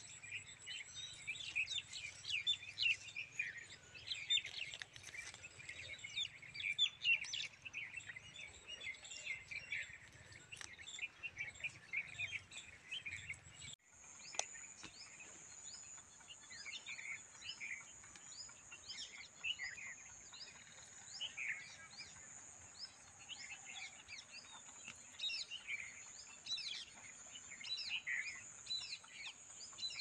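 Many small birds chirping, with short rapid calls overlapping throughout. There is a brief break about fourteen seconds in, after which a steady high-pitched hum runs under the chirps.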